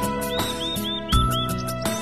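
Background music with held notes and a steady beat of low thumps; about a third of a second in comes a run of five quick chirps.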